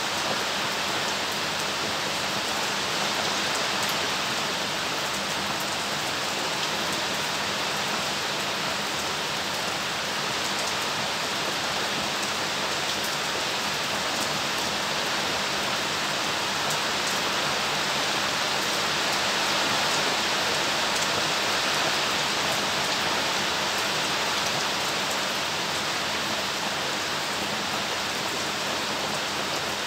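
Steady rain falling, an even hiss with a fine patter of drops.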